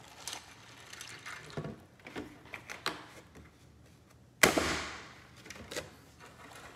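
Milk pouring from a plastic jug into a cereal bowl, then light handling clicks as the jug is capped. About four and a half seconds in comes a single sharp knock, the loudest sound, that dies away over about a second.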